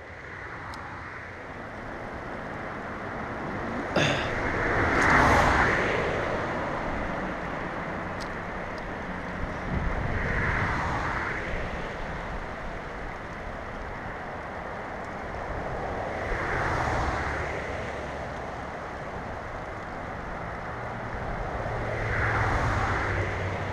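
Steady rush of flowing stream water with wind on the microphone, swelling louder every five or six seconds. A single sharp knock comes about four seconds in.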